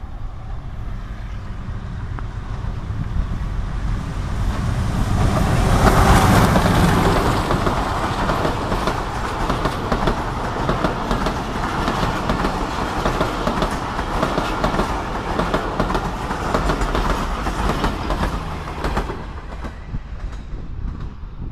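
Passenger express train passing close by. The noise builds to a peak about six seconds in as the locomotive goes past, then the coaches follow with a dense, steady clatter of wheels over the rail joints before it fades near the end.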